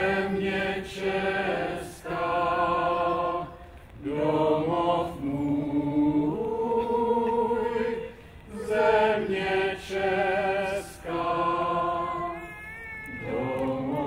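A small mixed group of men's and women's voices singing a slow song together, in phrases of a few seconds with long held notes and vibrato, broken by short pauses for breath.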